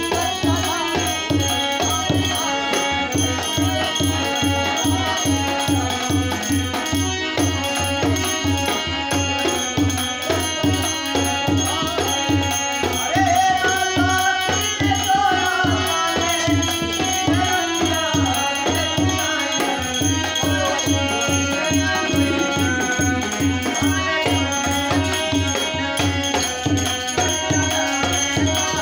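Devotional folk music of a Devi pachra: a dholak drum beating a steady rhythm under singing, with other hand percussion.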